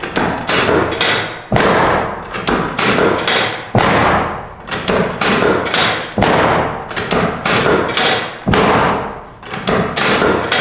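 Chiropractic drop table's drop section falling and catching again and again under quick thrusts: a rapid series of loud, sharp knocks, about two a second, each dying away briefly.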